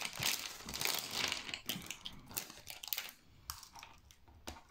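Small plastic parts being handled: LED bulbs taken from a plastic bag and pushed into a plastic diamond-painting lamp, with light rustling and sharp little clicks. The clicks come thick at first and more spread out in the second half.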